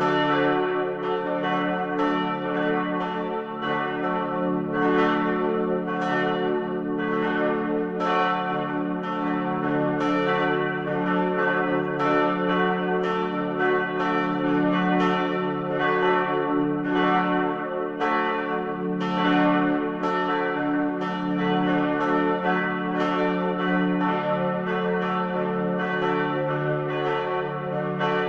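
Church bells ringing in a continuous peal: strikes come about twice a second, each over the long, overlapping ring of the bells before it.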